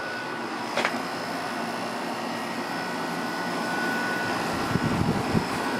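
Whirlpool 5,000 BTU window air conditioner running steadily on low cool, its fan blowing and Rechi rotary compressor running, with a faint steady whine over the noise. A short click comes just under a second in, and a brief low rumble near the end.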